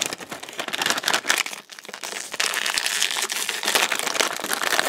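Plastic wrapper of a Hot Wheels Mystery Models blind bag crinkling and crackling as hands pull it open, with a brief lull about a second and a half in and steadier crinkling from about halfway.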